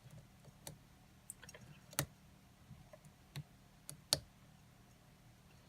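Lock pick and tension wrench clicking inside a Kwikset pin-tumbler lock: scattered, irregular small metallic clicks, the sharpest about four seconds in, as pins are probed that give no feedback with the lock locked up.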